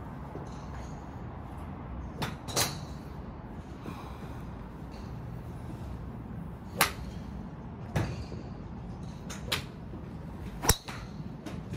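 A titanium TaylorMade R9 driver striking a golf ball off the tee, one sharp crack near the end and the loudest sound. Several fainter sharp clicks come earlier over a steady background hum.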